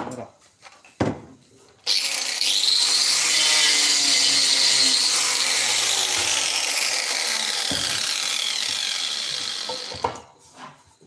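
A few wooden knocks as timber pieces are handled. Then a handheld power tool working wood starts suddenly, runs loud for a few seconds, and slowly fades away before stopping.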